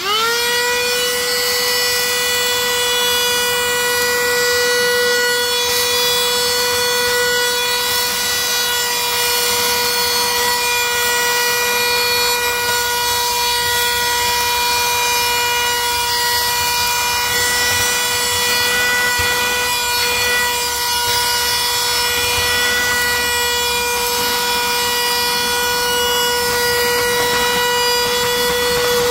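Black & Decker 20-volt cordless Dustbuster hand vacuum switched on, its motor spinning up within a moment to a steady high whine over a rush of air. It runs on without a break while it vacuums grit and small pebbles off a vehicle's rubber floor mat.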